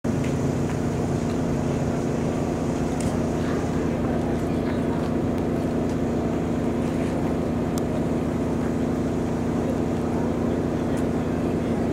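Truck engine idling: a steady, even hum that does not change.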